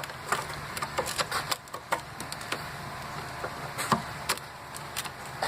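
Irregular clicks and light knocks of the battery hold-down rod and hand tools being fitted in a car's engine bay, the sharpest knock about four seconds in, over a steady low hum.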